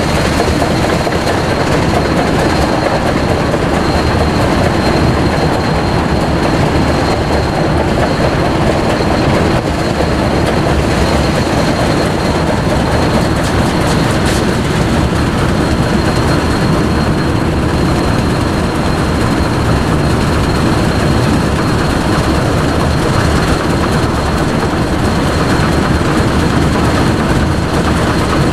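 Union Pacific 844, a 4-8-4 Northern-type steam locomotive, running at speed on a parallel track, heard from a pacing car through a camera's built-in microphone, with heavy wind and road noise. The noise stays steady throughout.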